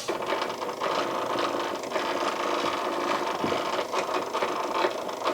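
Denon DCM-320 CD changer's internal mechanism running: a small motor whirring steadily with a light rattle and small clicks, as the changer moves its disc mechanism after the door has been closed.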